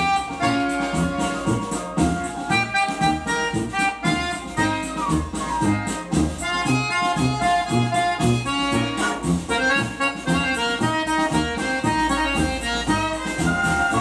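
Accordion-led Brazilian festa junina dance music with a backing band and a steady bass beat, played from a vinyl LP on a turntable.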